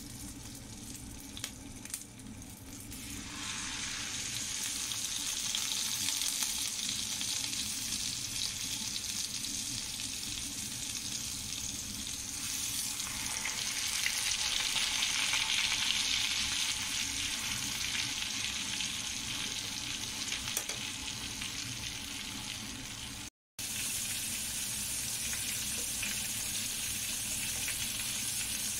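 Butter sizzling in a wok, growing louder about three and a half seconds in as two steaks go into the hot butter and sear with a steady sizzle. The sound cuts out for an instant about 23 seconds in.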